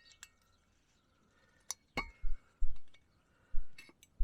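Metal clinks from tools and brake parts being handled: two sharp clinks about halfway through, the second ringing briefly, followed by a few dull knocks.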